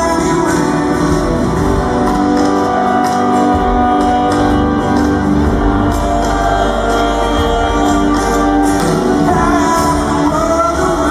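Live band music with singing: a rock band playing a song, a voice singing over guitar.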